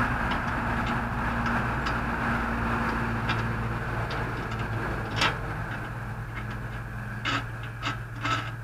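A steady low mechanical hum throughout, with a few sharp metallic clicks and knocks from a metal pellet trap being taken apart by hand, the loudest about five seconds in.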